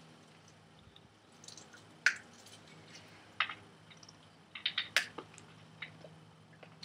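A few short, sharp clicks and snaps as Life Savers mints are broken into pieces and handled over a soda bottle, the loudest about two seconds in and a cluster around five seconds in, over a faint steady hum.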